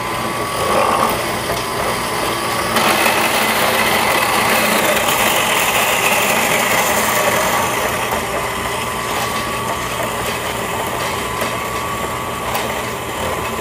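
Horizontal metal-cutting bandsaw running, its blade cutting through a metal tube fed down by hand. The cutting noise swells about three seconds in and eases off after about eight seconds.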